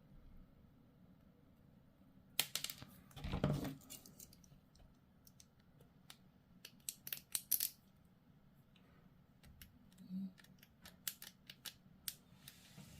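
Scattered light clicks and taps of small plastic model parts and hobby tools being handled on a desk, in a few short clusters.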